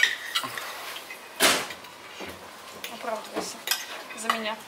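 A metal spoon clinking and scraping against a serving bowl and plate as boiled potatoes are dished up, with a sharp clink right at the start and a louder scrape about a second and a half in. Quiet voices murmur near the end.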